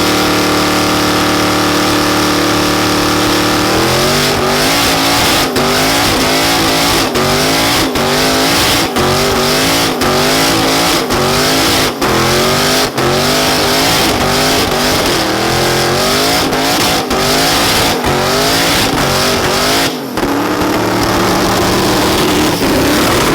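A car engine is held at a steady high pitch. About four seconds in it starts revving hard, the pitch rising and falling over and over in quick succession.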